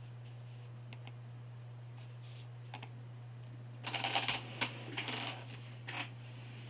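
Keystrokes on a computer keyboard: a few scattered taps, then a quick run of several keys about four seconds in, over a steady low electrical hum.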